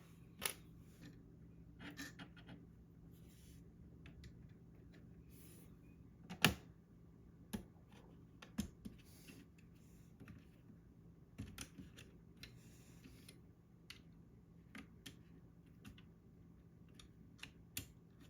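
Scattered light clicks and taps of small plastic keyboard parts being handled, irregular and a second or more apart, with one louder click about six and a half seconds in.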